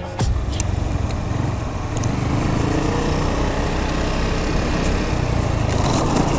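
A Yamaha maxi-scooter's engine running as it is ridden, under a steady wash of wind and road noise.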